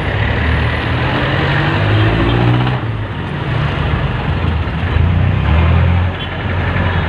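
Jeepney's diesel engine heard from aboard as it moves through traffic. It revs with rising pitch, falls away suddenly about three seconds in, then builds again before dropping about a second before the end.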